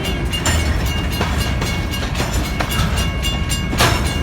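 Freight cars of a grain train rolling past, steel wheels clacking over the rail joints at uneven intervals over a steady low rumble, with a thin steady high squeal; one louder clack near the end.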